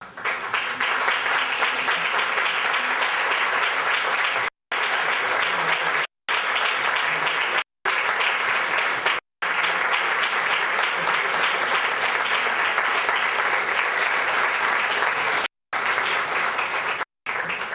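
Audience applauding steadily, cut by several brief dropouts where the sound vanishes completely.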